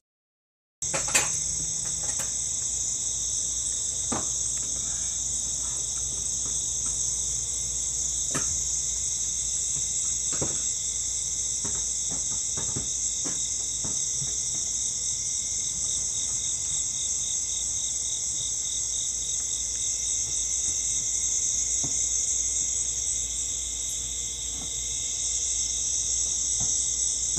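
Steady chorus of night insects, crickets, trilling without a break in a high band with a lower one beneath it. The chorus cuts in after a brief dropout at the start, with a few faint knocks, the loudest about a second in.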